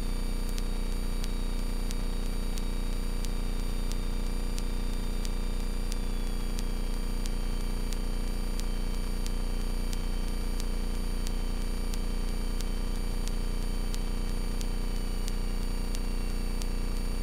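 Steady drone of a Carbon Cub FX-3's engine and propeller at taxi power, heard through the aircraft's intercom audio with an electrical hum. A faint high whine wavers in pitch, and faint ticks repeat at about two a second.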